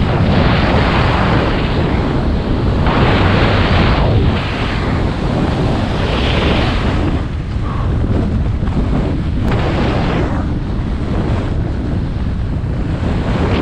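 Heavy wind buffeting the microphone of a skier moving at speed, over the hiss of Armada Declivity 92 Ti skis on snow. The hiss swells and fades every second or two, and is quieter in the second half.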